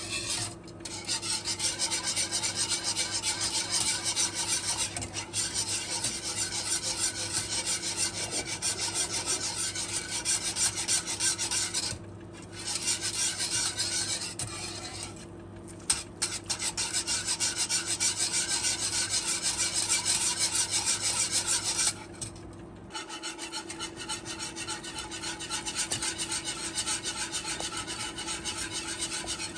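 A whisk or spoon rapidly scraping and stirring against the inside of a pot or bowl, with a few brief pauses. A steady low hum runs underneath.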